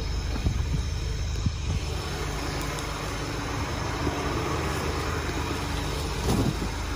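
A car's engine running, a steady low hum, with a few faint knocks.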